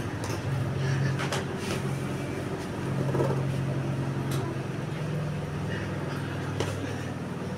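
A steady low mechanical hum, like a motor or engine running, under a few sharp slaps of fists landing on a small hanging punching bag.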